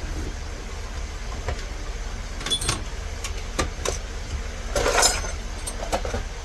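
Small clicks and knocks of locksmith tools and trays being handled and put away, with the busiest clatter about five seconds in, over a steady low hum.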